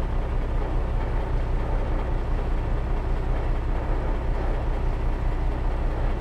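Steady low rumble of road traffic with a hiss over it, holding at an even level.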